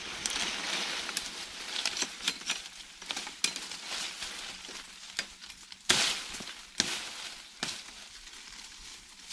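Leaves and dry twigs rustling and crackling as a person pushes through jungle undergrowth gathering branches, with a string of sharp cracks of snapping sticks, the loudest about six seconds in.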